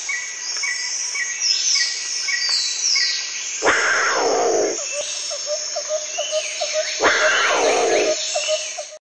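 Jungle sound effect: birds chirping and whistling over a rapid ticking pulse, with a big cat roaring twice, a few seconds apart; the roars are the loudest sounds. It cuts off suddenly near the end.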